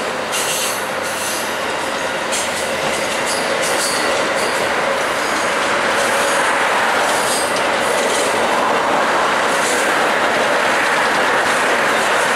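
Amtrak Auto Train autorack cars rolling past on a curve: a steady loud noise of steel wheels on rail, with faint high-pitched wheel squeal.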